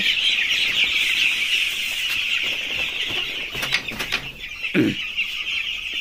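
Hundreds of eight-day-old broiler chicks peeping all at once in a crowded brooding house, as a steady, dense, high-pitched chorus. A few light clicks come about halfway through.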